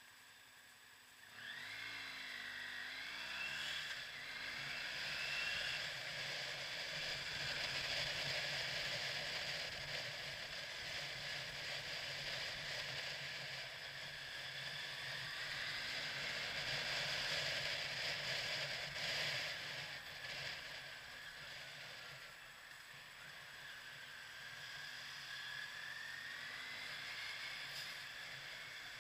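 Motorcycle engine pulling away about a second and a half in, its pitch rising as it accelerates, then running on under steady wind and road noise, with another rise in pitch near the end.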